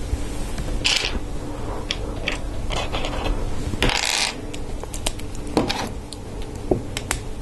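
Small plastic LEGO Technic parts clicking and rattling in the hands as pieces are picked up and fitted onto an axle, with two brief louder rasps about a second in and about four seconds in.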